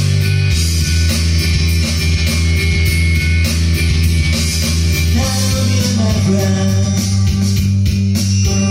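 Rock music with guitar, bass and a steady drum beat.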